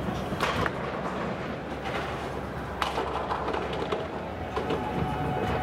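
A nine-pin bowling ball rolling down a wooden scissor lane toward the pins, with two sharp knocks, about half a second in and nearly three seconds in.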